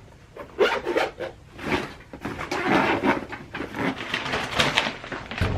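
Items being rummaged through and moved about by hand: irregular rustling, scraping and clunks.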